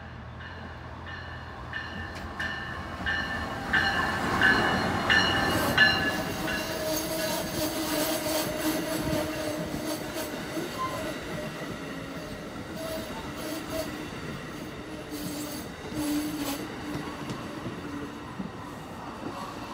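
Amtrak Keystone Service passenger train of stainless-steel coaches approaching and passing at speed. The rumble builds over the first few seconds and is loudest about four to six seconds in as the head end goes by. The coaches then roll past with a steady rumble, a low hum and wheel clicks, easing off as the end of the train passes.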